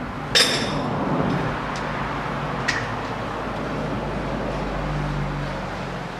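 A metal clink with a short ring about half a second in as the removed wheel hub and slide-hammer parts are handled, a faint tick near three seconds, then a steady low rumble that swells slightly about five seconds in.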